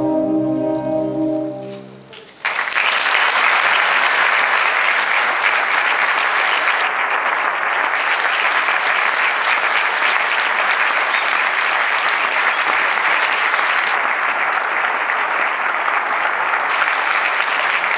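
The wind ensemble's final held chord fades out over the first two seconds, then an audience breaks into steady applause that carries on to the end.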